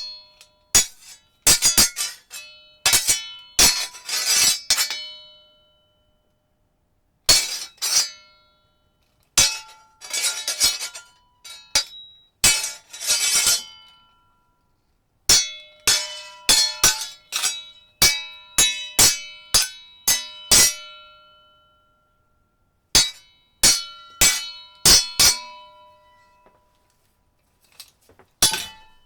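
Steel swords clashing: rapid flurries of sharp blade-on-blade strikes, each ringing on with a bright metallic tone, broken by pauses of a second or two between exchanges.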